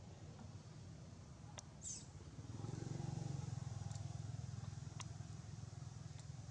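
A motor vehicle's engine running, a low rumble that grows louder about two and a half seconds in. A few faint clicks and a brief high squeak come near the two-second mark.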